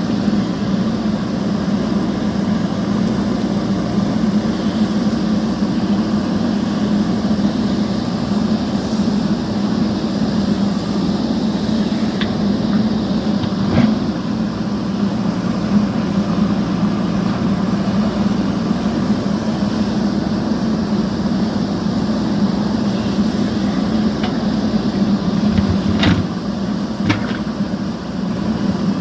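JCB backhoe loader's diesel engine running steadily under work, with a few sharp knocks about halfway through and near the end.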